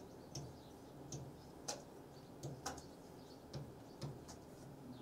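A marker pen tapping and scratching on a writing board as Hindi letters are written: several faint, irregularly spaced ticks.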